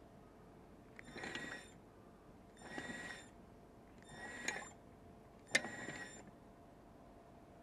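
Ishikawa-type stirring mortar grinder running a test with water in its bowl: four squealing, scraping bursts about a second and a half apart as the pestle and scraper turn, with a sharp click in the last two.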